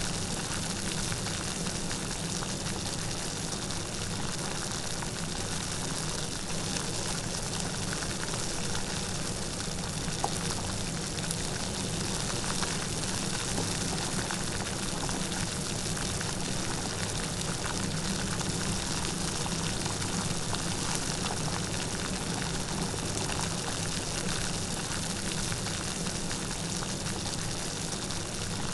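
Light, steady rain falling, an even hiss with scattered small drop ticks and no thunder.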